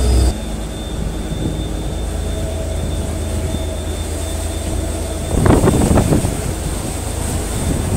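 Vaporetto water bus engine running steadily with a low rumble as the boat gets under way. A brief louder rush of noise comes about five and a half seconds in.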